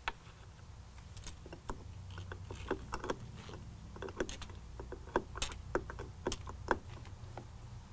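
Hand ratchet clicking in short, irregular runs while a battery terminal bolt is worked down over a wire ring terminal, with light metal clinks.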